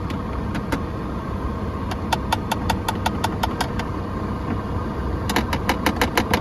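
Heater blower motor in a 2008 Mazda CX-9 running with a steady rush and a rhythmic clicking, about five clicks a second, speeding up to about eight or nine a second near the end as the fan speeds up. The old, worn blower motor is being replaced because of this noise.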